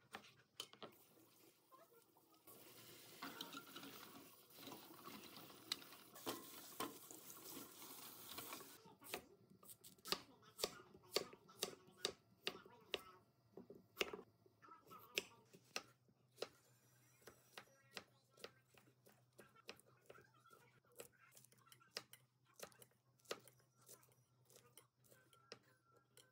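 Kitchen knife cutting vegetables on a bamboo cutting board: irregular sharp taps of the blade striking the wood, a couple a second, from about a third of the way in. A faint steady hiss comes before the taps start.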